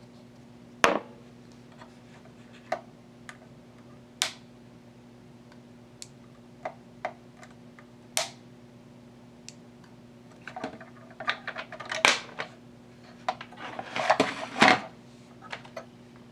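Small metal hand tools clicking and tapping against a circuit board while capacitors with bent leads are worked free. Single sharp clicks come every second or two at first, then a busier run of clatter and scraping starts about ten seconds in. A faint steady hum sits underneath.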